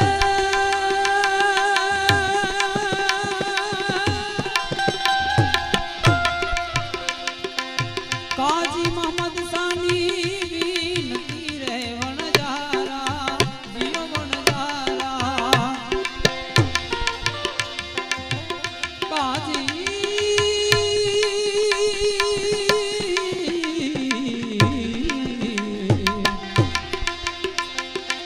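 Gujarati devotional bhajan music: a melody of long, wavering held notes that slide between pitches, over a steady hand-drum beat.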